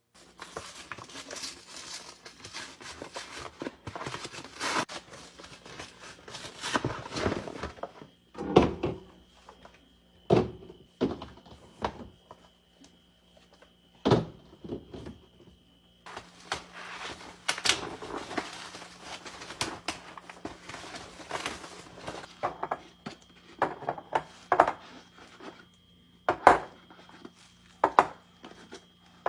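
Restocking a mini fridge: packaging rustling and items being handled, with several sharp knocks and thunks as things are set down on the shelves or in the door. A faint steady low hum runs underneath.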